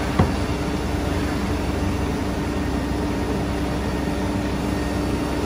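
Machinery running with a steady drone and a constant hum, and a single sharp knock just after the start.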